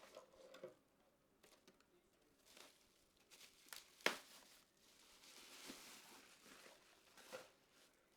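Faint handling noises while PC parts are worked by hand: light clicks and rustling, with one sharp click about four seconds in and a longer rustle shortly after.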